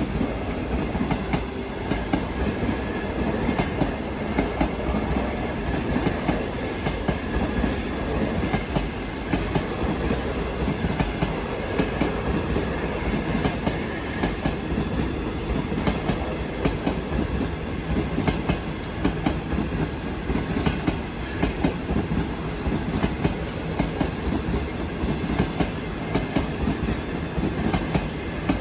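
A long train rolling past, its wheels clicking over the rail joints in a continuous clatter over a steady rumble.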